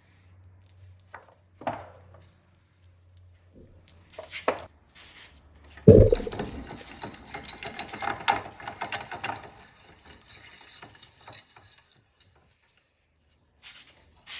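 Metal clinks and clanks of U-joint parts and sockets being handled at a bench vise: a few light clicks, then one loud clank about six seconds in followed by several seconds of clatter. A low hum sits under the first few seconds.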